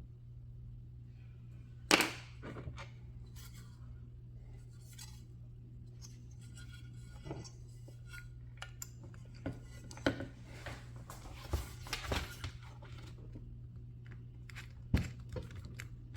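Small hand tools and RC car parts handled on a workbench: scattered clicks, taps and knocks as a Phillips screwdriver works at a stuck screw, with a sharp clack about two seconds in and another near the end. A steady low hum runs underneath.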